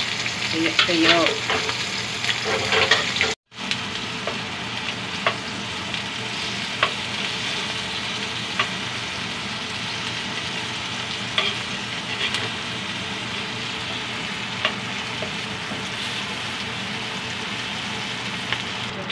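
Tuyo (dried salted fish) sizzling steadily as it fries in hot oil in a rectangular pan, with scattered sharp clicks as a slotted spatula turns the fish. The sound cuts out briefly about three seconds in.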